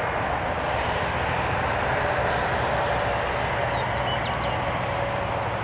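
An Airbus A320 airliner's jet engines giving a steady roar, with a faint steady whine, as it rolls out on the runway after landing.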